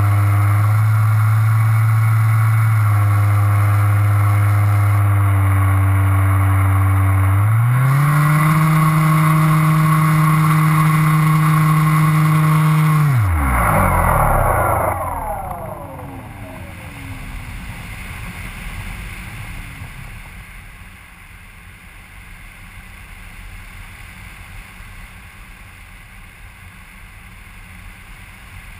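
Small aircraft engine heard from on board, running steadily, then rising in pitch about 7 seconds in and holding. Near the middle it is throttled back and winds down in a long falling glide, leaving only wind rush as the aircraft glides.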